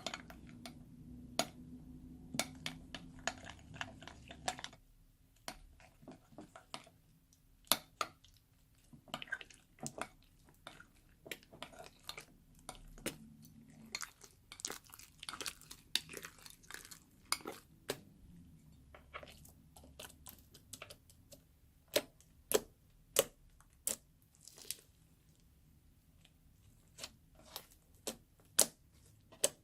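Hands squishing and poking slime, making irregular sharp pops and clicks, with a few louder pops in quick runs near the end.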